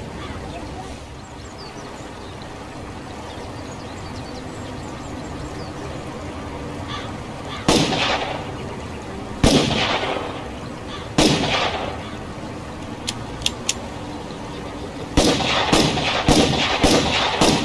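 Revolver gunshots: after a steady background hiss, three single shots about two seconds apart ring out, followed by a few light clicks and then a rapid volley of shots near the end.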